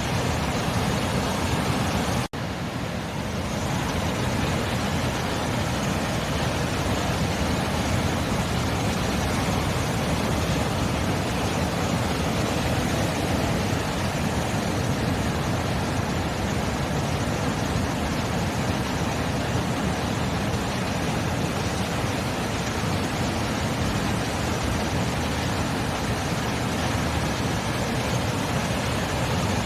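Ocean surf making a steady, even rush of noise, with a momentary break about two seconds in.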